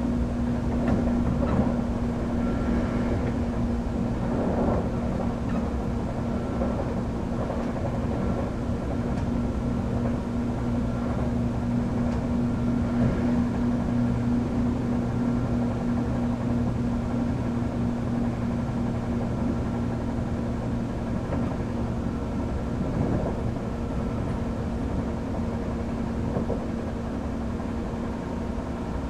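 Hankyu 3300 series resistance-control electric train running at speed, heard from inside the car. There is a steady rumble of the running gear with a constant hum, and a few short louder knocks along the way.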